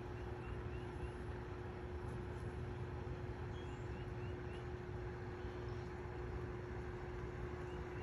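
Steady outdoor background rumble with a constant low hum, and a faint small bird giving quick runs of about four short rising chirps, three times.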